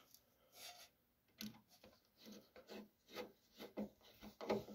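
Hand screwdriver turning a machine screw into a floating nut plate on a Cessna 150's cowl: a faint string of short scraping strokes, a few a second, as the threads bite.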